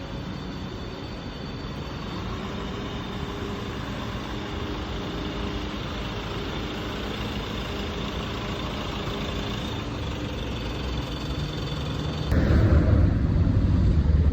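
City street ambience with a motor vehicle engine running. A louder low rumble starts suddenly near the end.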